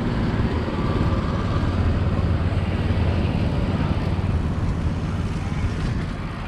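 Steady, low-pitched outdoor rumble of open-air street and seaside ambience, with no single sound standing out.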